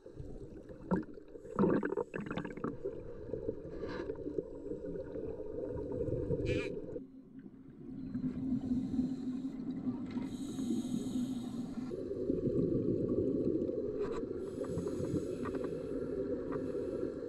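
Muffled underwater rush and gurgle of scuba divers' exhaled bubbles, with a few sharp clicks in the first seconds. The sound drops suddenly about seven seconds in and swells back up near twelve seconds.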